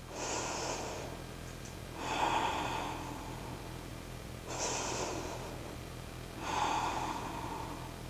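A woman breathing slowly and audibly in deep, even breaths, four breaths about two seconds apart.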